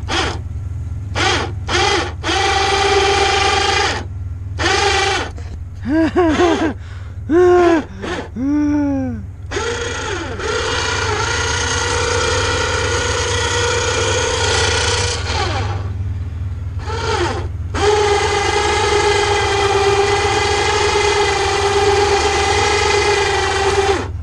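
Electric winch motor running as it works the cords of a hanging bed platform. First come a few short starts, then several quick bursts that rise and fall in pitch, then long steady runs of several seconds each. A low steady hum lies under it throughout.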